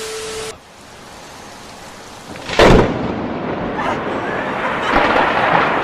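A close lightning strike's thunder: a sudden sharp crack about two and a half seconds in, then a loud rumble with rain.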